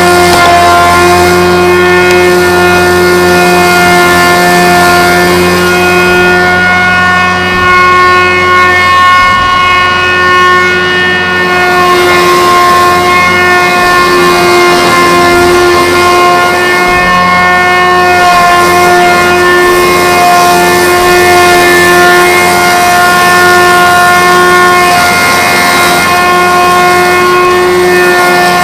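Homemade log-rounding machine running with a loud, steady whine.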